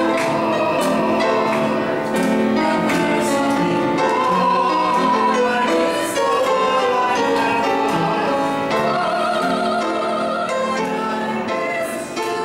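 Operatic-style singing with vibrato on long held notes, accompanied by piano.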